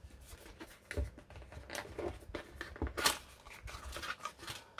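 Small white cardboard box being handled and opened by hand: irregular cardboard scrapes, small clicks and a light knock, with a louder rasp of the flap or seal tab pulling free about three seconds in.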